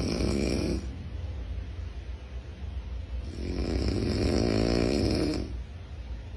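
Loud snoring: one snore ending just under a second in, then a longer rasping snore from about three and a half to five and a half seconds, with quieter breathing between.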